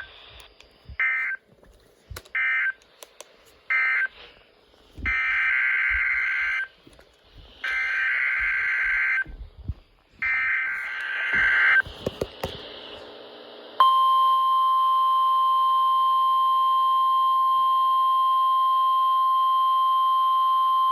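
Emergency Alert System SAME data tones: a few short bursts, then three longer header bursts about a second apart, signalling a Required Weekly Test. About two-thirds of the way in, the steady NOAA Weather Radio 1050 Hz warning alarm tone starts abruptly and holds.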